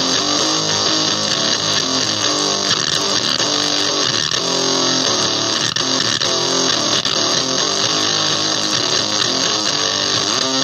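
Electric guitar in drop D riffing through a Basic Audio Pendulum pedal on a squelchy, crackly, extreme setting of its oscillation mode: heavily distorted notes over a steady high hiss.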